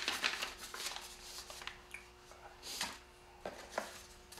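Paper instruction sheets rustling as they are handled and laid down, in a few short bursts.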